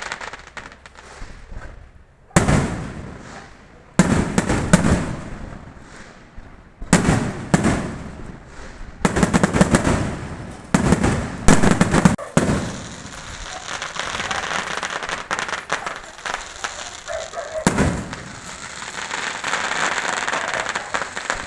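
Fireworks going off: a run of sharp bangs, some followed by rapid crackling, and then a long steady crackle and hiss with one more bang near the end.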